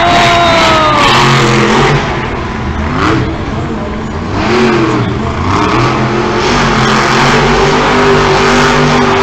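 Monster truck's supercharged engine revving hard: its pitch falls away and rises again several times, then holds a steady high note over the last few seconds.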